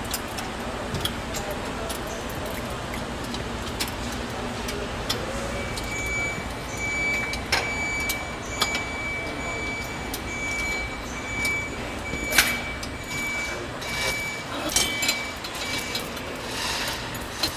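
Engine-shop work noise: a steady background hum with scattered metal clicks and knocks as a jet engine on its stand is handled. From about five seconds in, a high, steady tone sounds in short on-off stretches.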